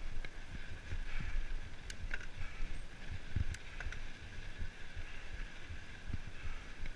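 Mountain bike rolling along a dry dirt trail: a steady rumble of tyres on dirt and gravel with wind buffeting the microphone, and a few sharp clicks and rattles from the bike over bumps.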